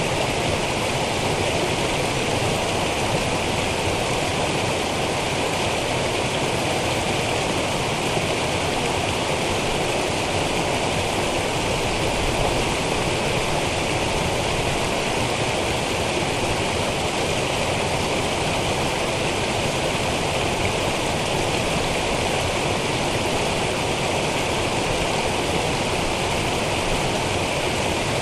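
Small stream cascading down over rocks: a steady noise of running water.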